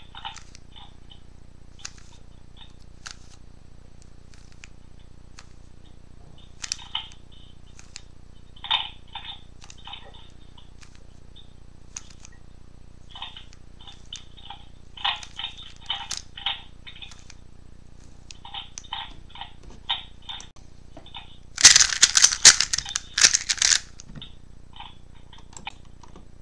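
A 3x3 speed cube's plastic layers turned by hand, giving clusters of quick clicks and clacks with short pauses between moves. Near the end comes a louder flurry of rapid turns.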